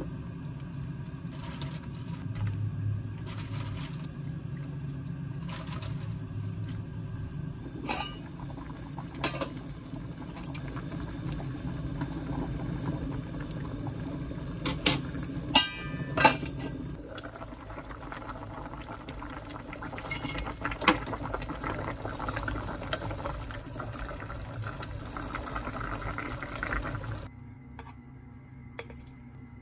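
Broth with sliced onion and chili peppers bubbling steadily in an aluminium pot, with several sharp clinks of a metal ladle against the pot as it is stirred.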